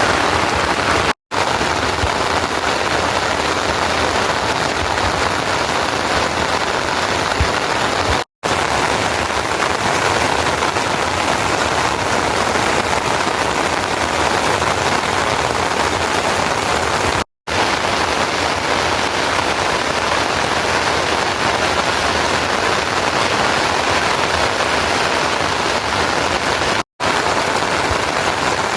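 Steady rain falling, an even hiss, cut off for an instant four times.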